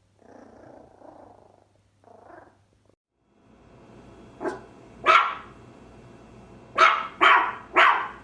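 A puppy growling low for the first few seconds, then barking five times from about halfway in, the last three barks in quick succession.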